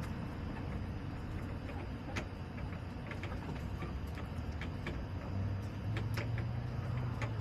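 Steady low hum with a few sharp ticks scattered through it; the hum grows stronger about five seconds in.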